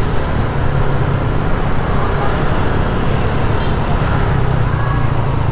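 Motorcycle engine running steadily under way, with continuous road and wind noise.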